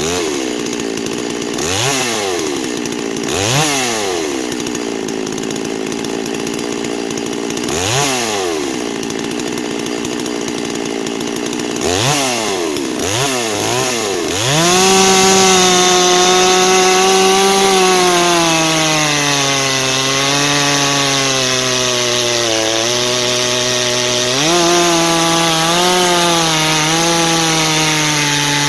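Farmertec Holzfforma G660 two-stroke chainsaw idling, with several quick throttle blips. About halfway through it goes to full throttle and the 36-inch bar cuts into a dry hardwood log. Under load the engine note sags and wavers as the chain bites.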